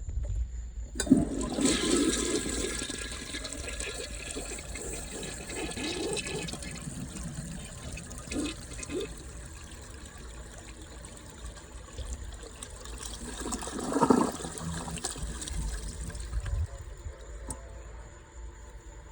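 A 1968 Rockport toilet flushing: a sudden rush of water starts about a second in and slowly tapers. A second loud surge comes around fourteen seconds in, and the sound dies down near the end.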